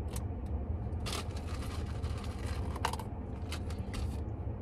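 Ice cubes rattling and clicking against a plastic cup and lid as they are shaken through the lid's opening: scattered short clatters, the loudest about a second in and near three seconds in. Underneath is a steady low rumble.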